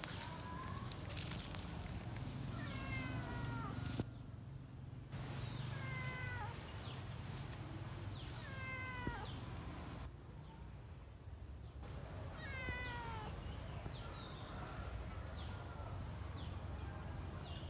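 A domestic cat up in a tree meowing over and over, one drawn-out, downward-bending meow about every three seconds. A steady low rumble runs underneath.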